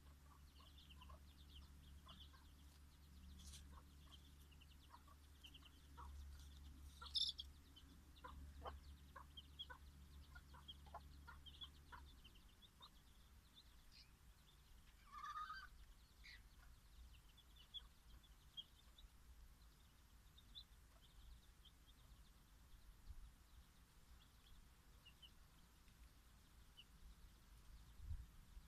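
Faint, scattered peeping of bantam chicks, with a Dutch bantam hen clucking now and then; a louder call stands out about seven seconds in and another about fifteen seconds in.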